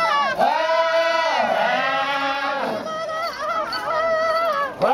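A group of Naga men chanting together in unison: long held calls that swoop up at the start and slide down at the end, one after another.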